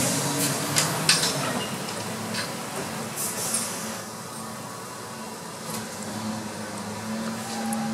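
Rear-loading garbage truck's diesel engine running steadily, with a few sharp metallic clanks and knocks from the rear hopper area during the first three or four seconds.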